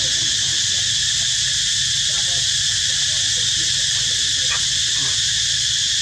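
Steady, unbroken high-pitched drone of a chorus of insects, with a low rumble beneath.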